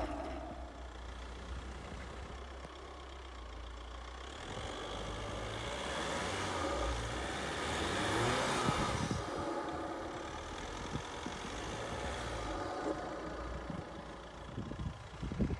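Volkswagen Amarok pickup's engine pulling under load through deep snow, heard from outside the truck. It builds up in level and pitch about halfway through, with a hiss of churned snow, then settles back to a steadier run.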